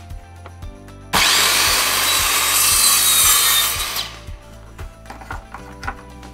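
Handheld electric circular saw crosscutting a wooden board. It starts abruptly about a second in, cuts steadily for about three seconds and dies away just after four seconds. Background music plays underneath.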